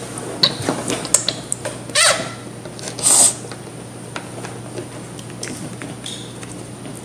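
Small plastic toy pieces being handled, giving scattered light clicks and taps against a plastic bowl, with two short louder noises about two and three seconds in.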